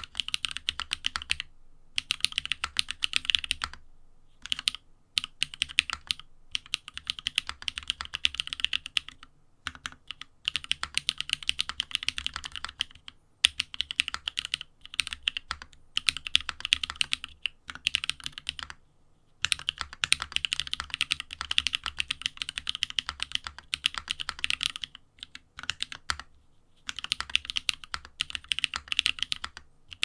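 Typing on a BEAR 65 ergo mechanical keyboard fitted with lubed Holy Panda tactile switches and DSA Vilebloom keycaps: fast runs of key clacks broken by brief pauses of about half a second every few seconds.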